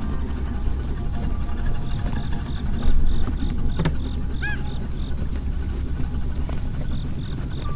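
A vehicle engine idling with a steady low rumble, under a fast, even high-pitched pulsing of about three or four beats a second. There is a single sharp knock just before four seconds in.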